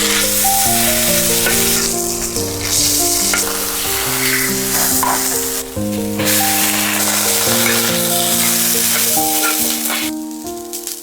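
Food frying and sizzling loudly in a hot pan, with brief stirring. The sizzle cuts out for a moment about halfway through and drops away near the end, under background music with a simple melody.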